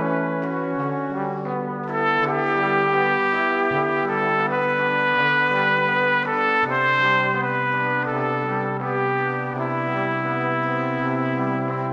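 Background music of slow, sustained brass-like chords, the bass note changing about every three seconds.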